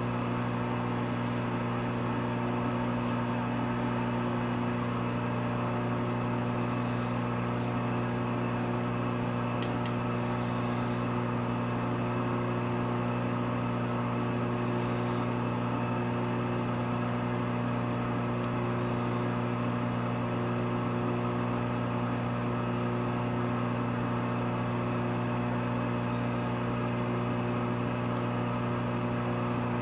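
Steady low electric hum of running shop machinery, with a few faint light ticks.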